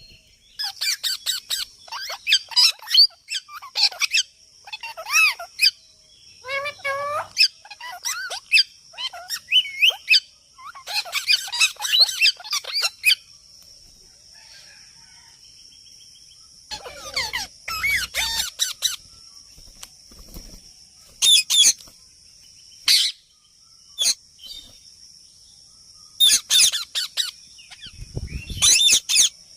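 Baby parrot chirping and calling in quick runs of short, sharp, high-pitched calls, with a few seconds' pause between some runs.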